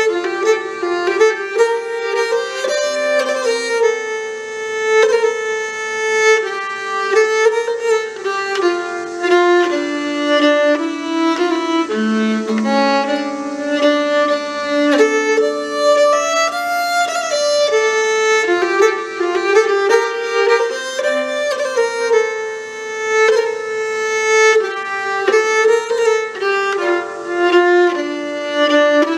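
A Cloud Nine Musical Instruments nyckelharpa, the Swedish keyed fiddle, bowed steadily, playing a folk melody of smoothly joined notes.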